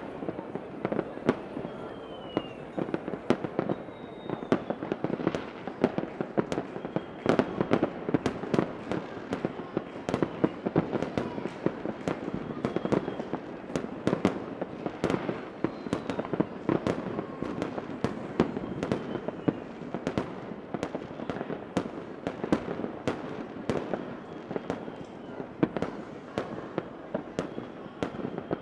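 Fireworks going off continuously: a dense, steady run of sharp pops and crackles, with a few faint short whistles.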